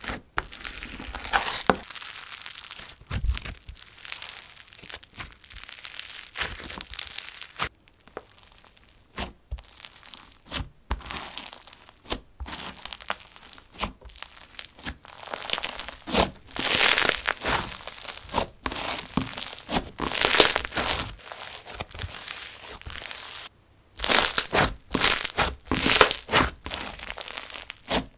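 Pink floam slime packed with tiny foam beads being squeezed and pressed by hand, giving an irregular run of crunching, crackling pops as the beads are crushed. The pops come in louder clusters in the second half.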